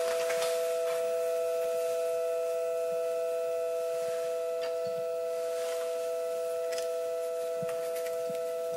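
A held two-note tone, like a sustained chime or drone in a soundtrack, ringing steadily and fading only slightly. Faint scattered clicks and rustles sit underneath.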